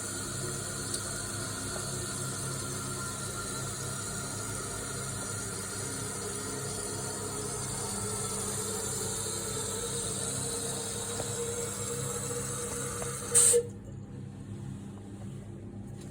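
Geberit cistern fill valve refilling the tank: a steady hiss of running water with a faint tone that slowly rises. About thirteen seconds in it stops abruptly with a short loud burst as the valve shuts off.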